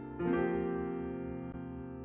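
Keyboard music: a chord struck just after the start, left to ring and slowly fade.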